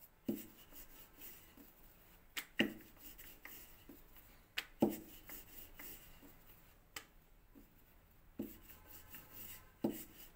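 Wooden rolling pin rolling dough thin on a floured work surface: soft rubbing strokes, with about five sharp knocks spaced a second or two apart as the pin comes down on the surface.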